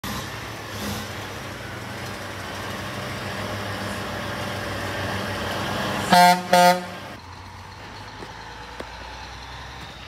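A dump truck's diesel engine running and growing louder as the truck approaches, then two short blasts of its horn about six seconds in, the loudest sounds here; the engine noise drops off after the honks as the truck passes.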